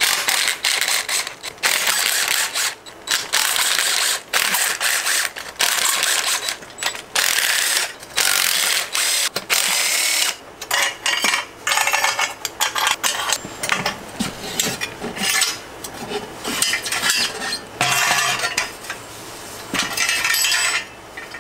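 Cordless DeWalt 20V impact driver hammering in a long series of short bursts with brief pauses between, backing off the PB Blaster-soaked exhaust header flange nuts on a motorcycle engine.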